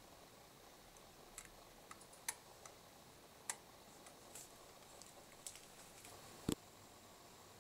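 Near silence with a few faint, scattered clicks and ticks, the sharpest one about six and a half seconds in.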